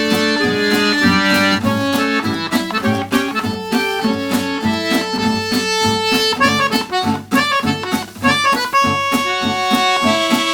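Background music: an upbeat tune with accordion melody over plucked guitar accompaniment.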